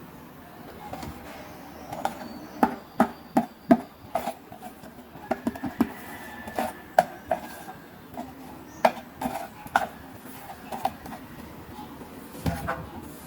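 Small plastic toys and their packaging handled during unboxing: a string of sharp, irregular clicks and taps.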